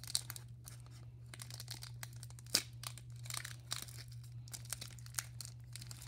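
Baseball card pack wrappers crinkling and tearing as packs are ripped open by hand, in irregular crackles with one sharp crackle about two and a half seconds in, over a steady low hum.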